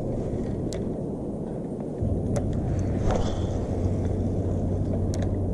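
Wind rumbling on the microphone, with a few short sharp clicks. A steady low hum joins about two seconds in.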